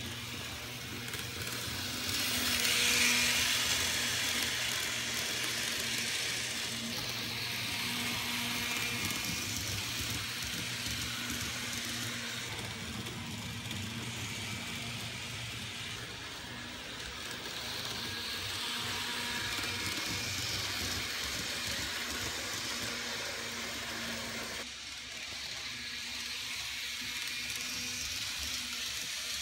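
N scale model train running along the track: a hiss of small wheels on rail over a low steady hum, swelling as cars pass close and fading again, with a sudden drop about 25 seconds in.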